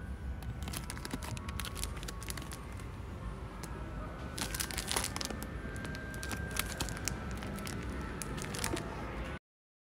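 Plastic packaging of a picnic sheet crinkling in bursts as it is handled, over a steady low background hum. The sound cuts off abruptly near the end.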